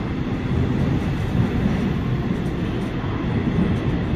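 Seoul Subway Line 3 electric train, set D341, running through an underground station without stopping: a steady, deep rumble of wheels on rail.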